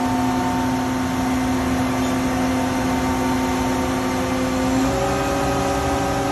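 Engine running steadily, its pitch stepping up about five seconds in.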